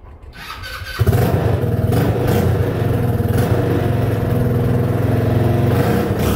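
Hammerhead Twister go-kart buggy engine starting with a sudden burst about a second in, then running steadily until it cuts off abruptly at the end.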